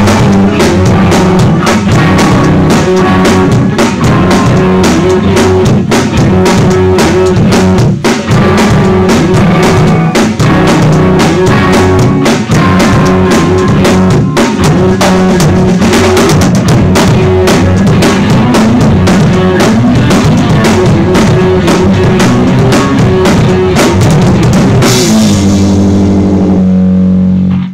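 Rock band playing loud punk: a drum kit with bass drum and cymbals driving under an electric guitar. Near the end the band stops on a held chord with a crash cymbal ringing, which cuts off suddenly.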